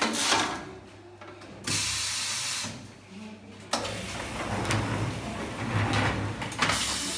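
Metal-framed wire-mesh screens scraping and clattering as they are handled on a tea-pressing machine, the stage where tea leaves are pressed flat between two nets. A steady hiss lasting about a second comes about two seconds in, and rattling and knocking carries on from about four seconds in.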